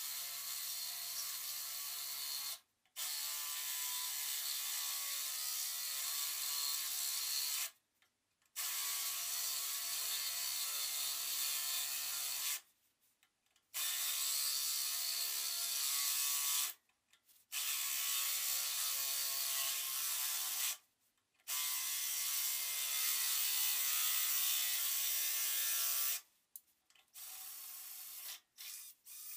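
Electric drill with a 15/32-inch bit boring a hole through the bandsaw's metal access panel. It runs in about six spells of three to five seconds with brief stops between, the motor's pitch holding steady.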